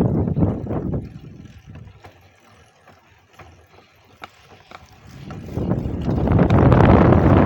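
Wind buffeting the microphone of a handlebar-mounted phone on a moving bicycle, with a few faint clicks in a quieter stretch; the wind rush builds back up loud from about five and a half seconds in.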